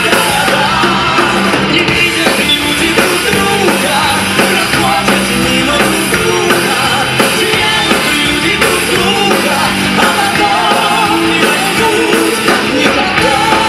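Live rock-style band music with a man singing the song's final chorus.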